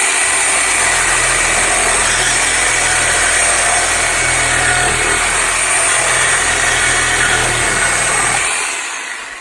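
Reciprocating saw running steadily as a 14 TPI bi-metal blade cuts through wood and then metal, with a steady high whine over the cutting noise. The motor winds down near the end.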